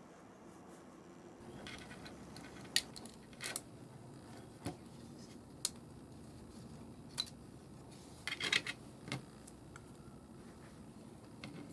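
Small hard plastic and metal parts being handled: a string of sharp clicks and clacks, with a quick cluster of them about eight seconds in.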